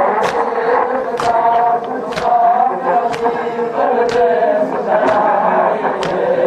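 Crowd of men chanting a nauha (Shia lament) together. Sharp strikes of unison chest-beating (matam) land about once a second.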